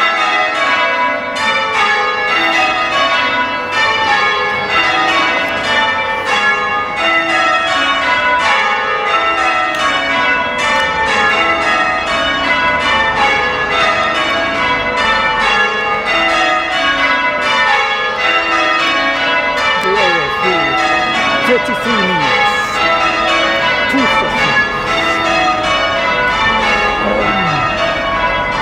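Six church bells, the front six of an eight-bell ring, rung full-circle in English change ringing, heard from outside the tower. The strokes come in a steady, evenly spaced sequence of overlapping, ringing tones that step down through the bells row after row.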